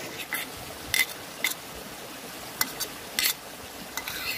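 Metal spoon clinking against a small camping cook pot while noodles are stirred: about eight short, ringing clinks at uneven intervals, over a steady hiss.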